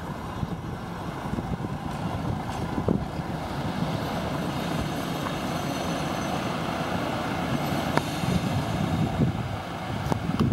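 The Gulflander railmotor's diesel engine running steadily as a low rumble, with wind on the microphone and a few light clicks.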